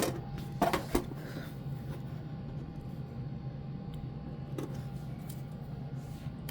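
A few short knocks and clicks of a horn strobe's mounting bracket being handled: two close together about a second in and a lighter one a little past four seconds, over a steady low hum.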